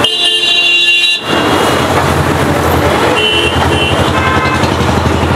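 Road traffic: a motor vehicle's engine rumble swells in about a second in and stays loud, with vehicle horns honking briefly at the start and again a few seconds later.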